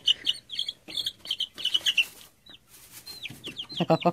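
A group of young chicks peeping: many short, high cheeps in quick succession, thinning out for a moment in the middle and then picking up again. Near the end there is a brief lower-pitched sound.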